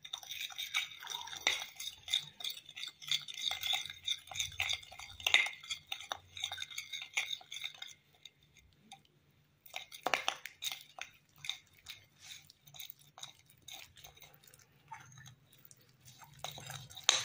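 A metal spoon scraping and clinking against a plate while stirring a thick, sticky magnetic slime mixture as the activator is worked in. The stirring stops for a second or two about halfway through, then starts again.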